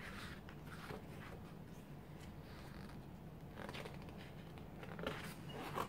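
Glossy pages of a photobook being turned and smoothed flat by hand: soft paper rustles and slides in a few short brushes, the loudest near the end.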